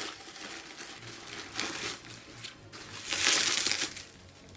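Plastic packaging crinkling and rustling as it is handled and pulled open by hand, with a louder stretch of crinkling about three seconds in.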